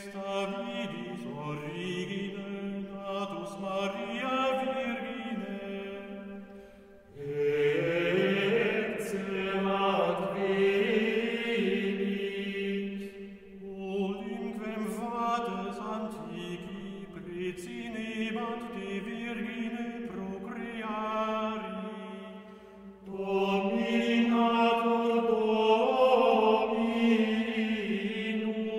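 Medieval Gregorian-style chant sung by a small vocal ensemble, long sustained melodic lines. The singing grows fuller and louder about seven seconds in and again near the end.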